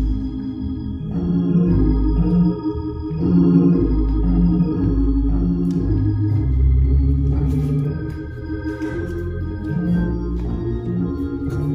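Church organ playing sustained chords over a bass line that moves every second or so.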